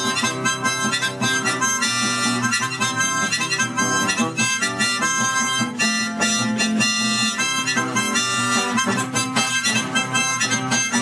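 A miniature key-ring harmonica played hands-free in the mouth, a continuous run of reedy notes changing pitch throughout, over a strummed acoustic guitar.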